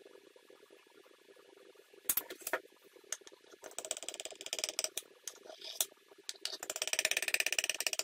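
A kitchen knife cutting through a sauce-covered cake in a glass baking dish: the blade clicks against the glass a few times, and twice there is a rapid rattling scrape as it is drawn along the bottom of the dish.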